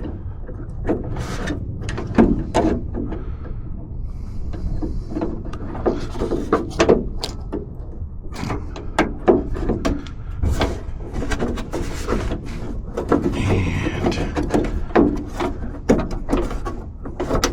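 Irregular clicks, taps and rubbing of plastic latch-rod clips being worked onto the metal rods inside a Jeep Wrangler YJ door, the last clip proving hard to seat.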